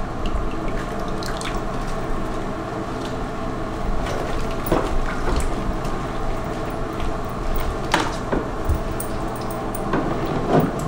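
Bath water sloshing and dripping in a bathtub as a baby is washed with a washcloth, with a few small splashes.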